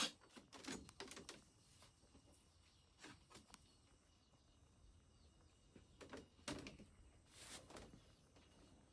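Near silence, broken by a sharp click at the very start and a few faint scattered knocks.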